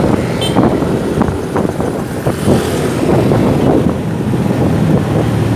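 Motorcycle engine running steadily on the move through city traffic, with wind buffeting the microphone.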